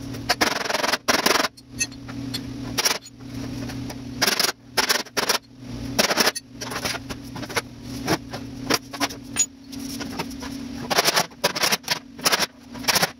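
Body hammer striking the steel of a dented classic-car fender against a dolly: an irregular series of sharp metallic blows, some in quick clusters, as the dent is roughed out. A steady low hum runs underneath.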